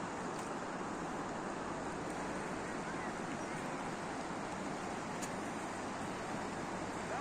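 Steady rushing of a fast-flowing river, an even, unbroken noise.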